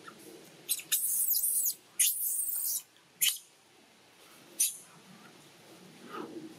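Young long-tailed macaque giving high-pitched screeching squeals: five cries, the two longest about one and two seconds in, shorter ones either side.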